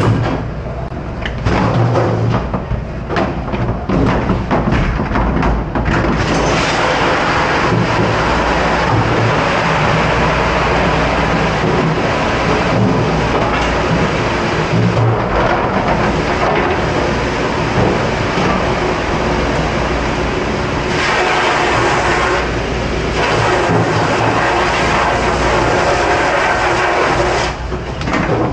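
Commercial dish pit: plastic dish racks and metal pans clatter and knock for the first few seconds, then a loud, steady rush of water spraying from the dishwashing equipment dominates, easing off just before the end.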